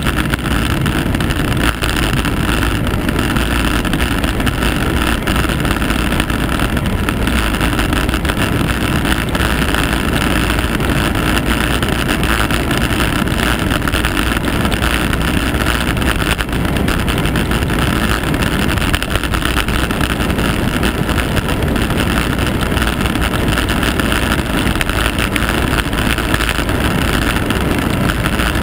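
Steady wind rush buffeting the microphone of a camera riding fast down a mountain road, mixed with road rumble.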